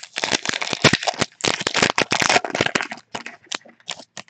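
A trading-card pack's wrapper crinkling and crackling as the pack is opened: dense crackling for about three seconds, then a few scattered crinkles near the end.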